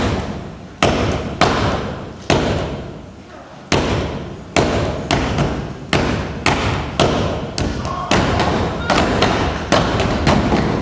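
Step team stomping and clapping in unison, each sharp hit echoing in a large hall. The hits come spaced out at first, then quicken to about two or three a second in the second half.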